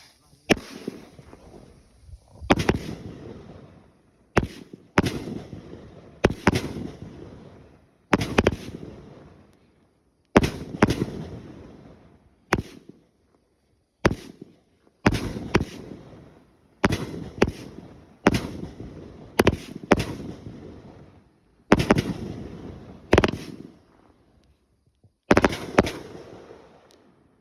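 A 500g consumer firework cake firing a volley of about twenty shots at irregular intervals. Each shot is a sharp bang that trails off over a second or so, and the last comes shortly before the end.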